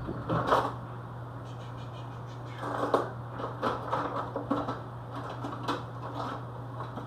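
Sauced cauliflower wings being set back onto a baking pan piece by piece: a string of light taps and clicks, thickest in the middle stretch, over a steady low hum.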